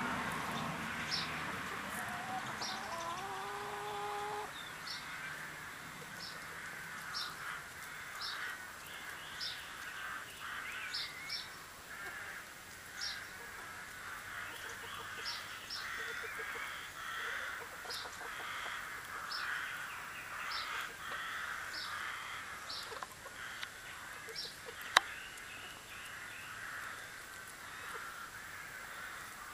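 A flock of free-range hens clucking and calling as they forage, with a drawn-out call about three seconds in and short high chirps repeating about once a second. A single sharp click comes near the end.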